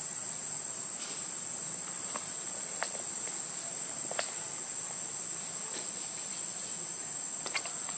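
Steady high-pitched insect chorus, with a few faint short clicks scattered through it.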